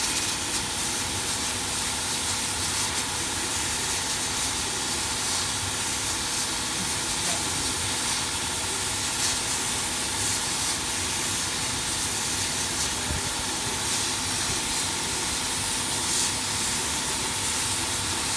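CO2 laser fabric-cutting machine running as it cuts: a steady hiss with a faint steady hum underneath.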